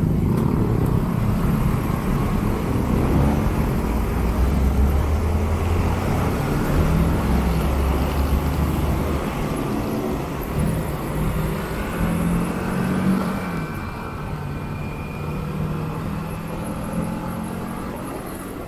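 Motorcycle riding in dense city traffic: its own engine running under way amid the drone of surrounding cars and motorcycles, the engine note rising and falling as it pulls away, with a rising note about two-thirds of the way through. The overall sound eases off gradually toward the end.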